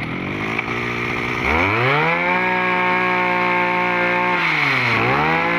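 Small 23cc Robin two-stroke brush-cutter engine running just after starting. About a second and a half in it revs up to a steady high speed, then near the end it eases off briefly and picks up again.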